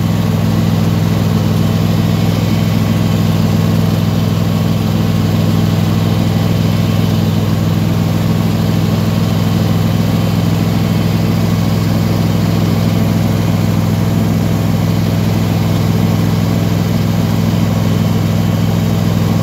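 Simplicity Broadmoor garden tractor's engine running at a steady speed as the tractor drives along, an even drone that does not change in pitch.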